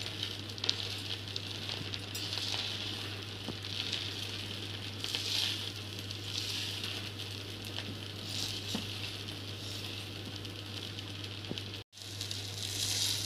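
Cooked white rice being turned and fluffed in a pot with a silicone spatula, with a faint sizzle from the spoonful of ghee stirred through it; soft scraping swells come every second or two. A steady low hum runs underneath, and the sound cuts out for an instant near the end.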